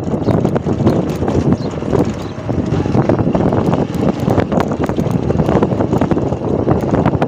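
Bajaj Platina motorcycle's single-cylinder engine running at low road speed on a rough dirt road, with frequent short rattles and knocks from the bike jolting over the bumpy surface. Wind buffets the microphone.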